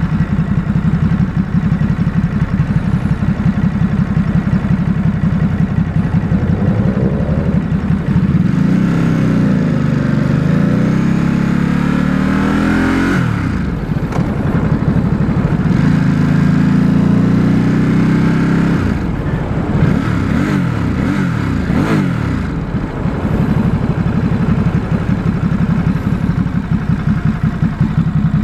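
2018 Ducati SuperSport S's stock 937 cc L-twin engine in a ride. It pulses low and even for the first several seconds, then revs up and down in pitch with a sudden drop about 13 seconds in. It runs steadily for a few seconds, rises and falls quickly several times, and settles back to an even low pulse near the end.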